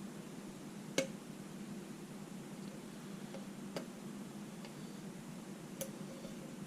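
Small sharp clicks of a hook pick and tension tool working the pins of a mortise lock cylinder: three clear clicks about a second in, near four seconds and near six seconds, with a few fainter ticks between, over a steady low hum.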